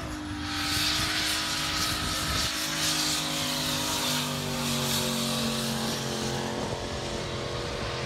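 Turbocharged LS1 V8 of a Holden VY SS Commodore held at high revs in a powerskid, with the rear tyres spinning and smoking. The engine note holds steady with slow drifts in pitch, over a loud hiss of tyre noise.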